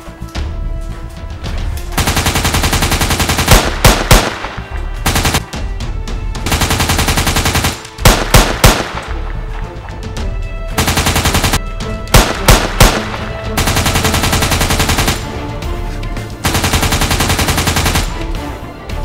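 Movie-style automatic gunfire sound effects: about five bursts of rapid fire, each a second or two long, with loud single shots in twos and threes between them, over background music.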